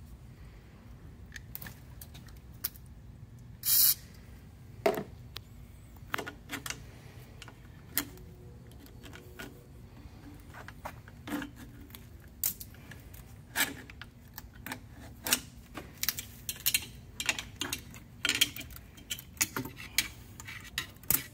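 Scattered clicks and light metallic clinks of a screwdriver and hands working the hose clamps and hose fittings on a marine diesel's aftercooler, with one short hiss about four seconds in.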